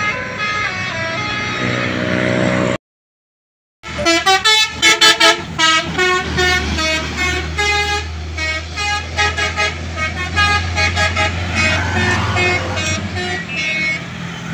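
Indonesian bus 'telolet' multi-tone horn playing quick melodic runs of notes, over the low hum of the bus engine. The sound breaks off completely for about a second, about three seconds in.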